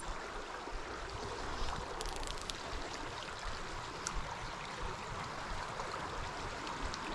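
Water of a small creek running steadily, with a few faint clicks about two and four seconds in.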